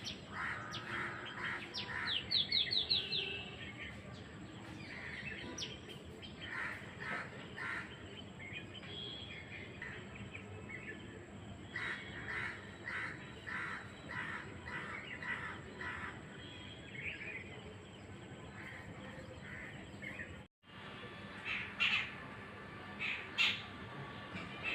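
Birds calling in a run of short chirps and calls, with a quick series of falling notes about two seconds in. After a break near the end come two louder calls.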